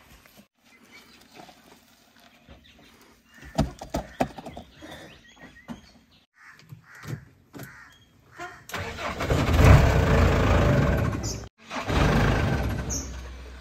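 JCB 3DX backhoe loader's diesel engine cranked and started about nine seconds in, then running loudly. Before that, a few scattered knocks and clunks.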